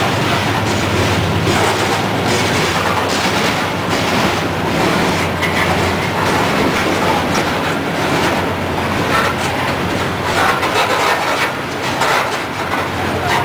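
CSX freight train's coal hopper cars rolling past, steel wheels clacking over rail joints amid a steady rumble.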